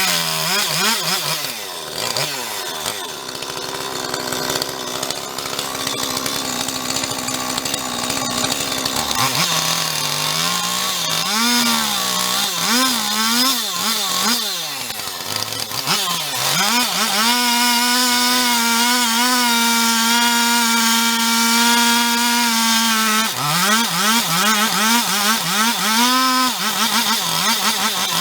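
Husqvarna 450 Rancher two-stroke chainsaw working through a wood slab, trimming and flattening it. The engine revs up and down repeatedly, and is held at a steady high rev for several seconds past the middle.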